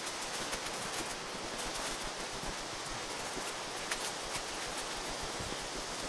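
Steady rushing of a river and waterfall close by. Scattered light clicks and rustles come from footsteps on the path and from the handheld action camera.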